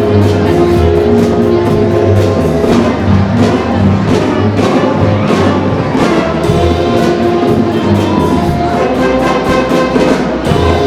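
School jazz band playing live: brass horns holding and moving between notes over drums and cymbals keeping a steady beat.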